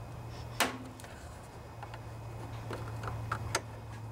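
Steel screwdriver tip clicking against the plastic grille and cover of a Kohler engine's shroud while prying out its small plastic clips: one sharp click about half a second in, then several lighter ticks.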